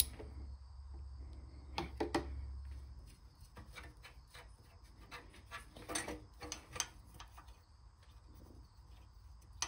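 Scattered light metallic clicks and taps of an exhaust pipe and its bolts being fitted by hand to a small engine's cylinder head, with a low hum that stops about three seconds in.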